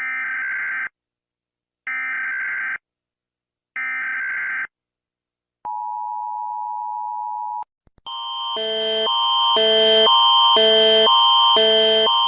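Emergency Alert System alarm: three short bursts of the SAME data header, then the steady two-tone attention signal for about two seconds. Near the end a louder alarm tone sequence begins, alternating pitches about twice a second over a steady high tone and swelling in loudness.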